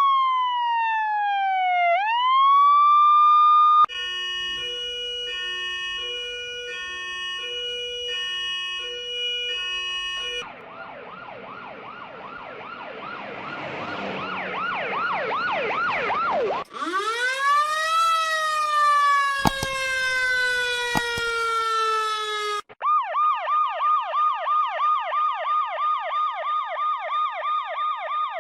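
Emergency-vehicle sirens played one after another, each cut hard to the next: first a slow wail, then a stepped multi-tone pattern. After that come quick repeated sweeps that grow louder, then a long tone that rises and slowly falls, and at the end a rapid yelp cycling about four times a second.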